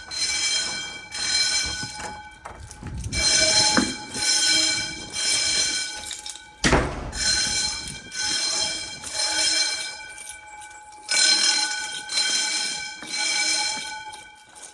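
Building fire alarm sounding during a system test, a steady electronic tone pulsing on and off in repeated short blasts with occasional longer pauses. One loud thump about halfway through.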